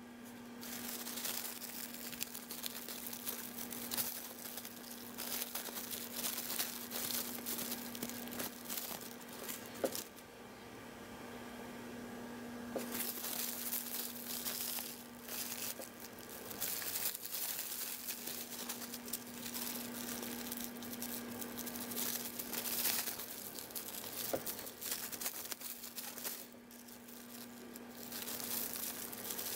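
Thin plastic cling film crinkling and rustling as hands handle and fold it, irregular and on and off, with a quieter lull about ten seconds in.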